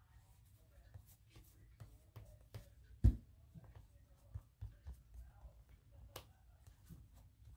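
Scattered light clicks and taps of paper, scissors and pens being handled on a craft table, with one louder thump about three seconds in.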